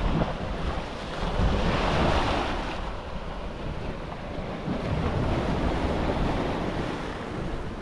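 Small waves lapping and washing onto a sandy shore, with wind rumbling on the microphone; a louder wash of water comes about two seconds in.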